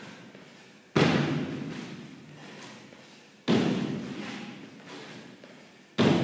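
Feet landing on a wooden plyo box during box jumps: three loud hollow thuds about two and a half seconds apart, each trailing off slowly.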